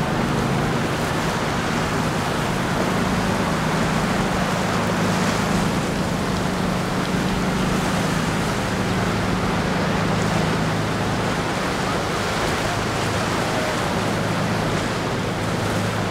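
Steady rush of rough surf and wind, with the low, even drone of boat engines running underneath.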